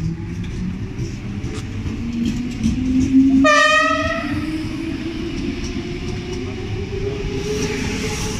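DB Class 420 S-Bahn electric multiple unit pulling away, its traction motor whine rising steadily in pitch as it gathers speed. A short horn blast sounds about three and a half seconds in.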